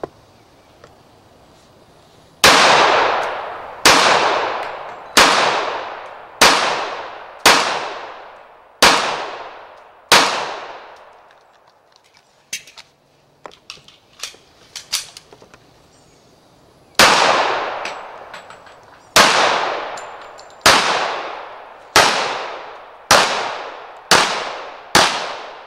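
Semi-automatic pistol fired seven times at a steady pace of roughly one shot every second and a quarter, each shot trailing off in a long echo. A few light metallic clicks follow as the magazine is changed, then seven more shots at the same pace.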